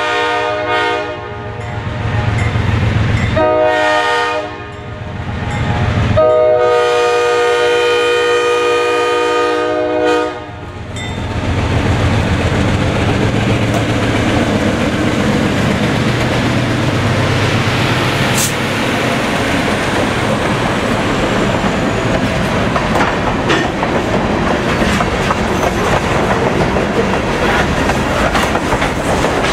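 Diesel locomotive horn of a GE B23-7 leading a GP9 blowing for a grade crossing: a long blast ending about a second in, a short blast, then a long blast of about four seconds. The two diesel locomotives then pass close by, followed by covered hopper cars whose wheels rumble and clack steadily over the rails.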